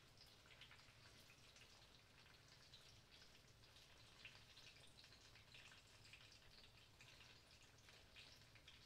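Faint, continuous sizzling and crackling of breaded eggplant slices frying in oil in a pan.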